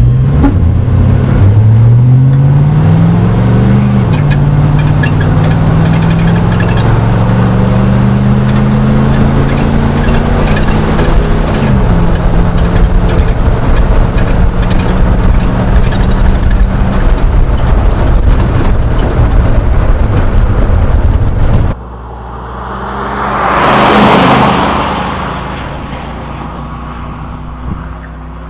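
5.3L LM7 V8 of a 1999 Chevrolet Silverado, fitted with a Cherry Bomb muffler, accelerating through the gears from inside the cab: the engine note rises, drops at a shift about four seconds in, rises again and drops about twelve seconds in, then holds steady. About twenty-two seconds in it cuts off abruptly and a vehicle passes by, swelling and fading.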